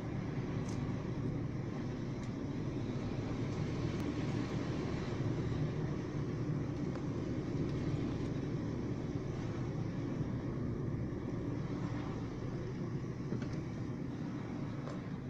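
Steady engine and road noise of a car driving at low speed, heard from inside the cabin.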